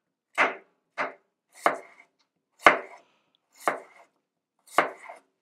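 Dollar Tree santoku knife chopping through an apple onto a cutting board: six separate chops, about one a second.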